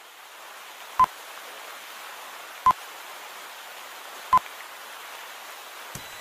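Short electronic beeps, three of them about a second and a half apart, over a steady hiss.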